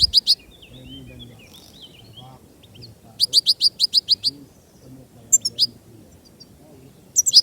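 European goldfinch calling: quick bursts of sharp, high, repeated notes at about ten a second, three or four bursts, with softer twittering between them.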